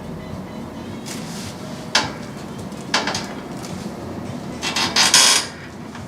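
Chiropractic treatment table knocking and creaking under hands-on treatment: single sharp clicks about two and three seconds in, then a louder quick run of clicks and rustle near the end.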